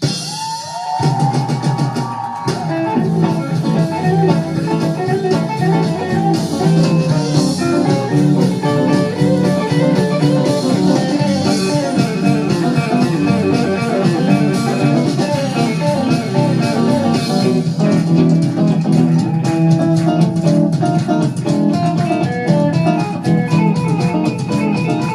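Instrumental rock music with guitars, bass guitar and drum kit, starting up right at the beginning after a brief drop in level.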